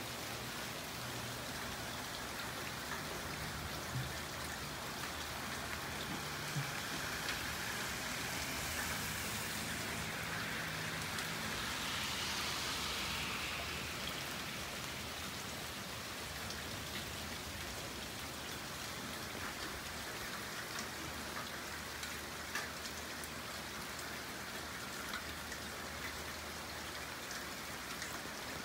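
Heavy thunderstorm rain falling steadily, with individual drops ticking on hard surfaces. It grows a little louder about a third of the way in, then eases back.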